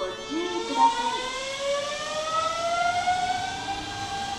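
Hanshin 5500-series electric train's VVVF inverter and traction motors whining as the train pulls away, several tones rising together in pitch as it gathers speed.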